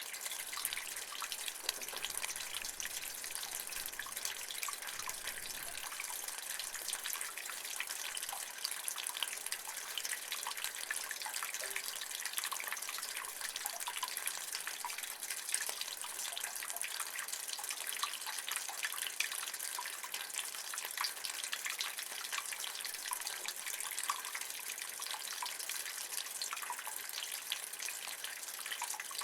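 Rainwater running and dripping in a rain gutter: a steady trickling hiss with many small, quick drips and splashes throughout.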